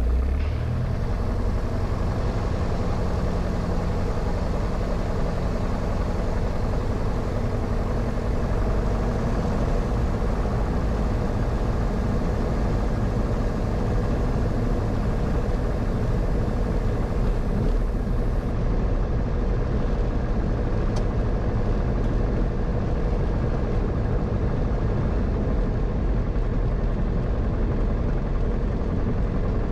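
Light aircraft's four-cylinder piston engine, a Grumman AA-5's, running steadily at low taxi power: a constant, even drone.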